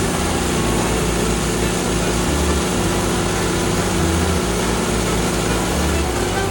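Woodland Mills HM126 portable bandsaw mill running steadily under load as its blade cuts through a white oak log. A country music track plays underneath.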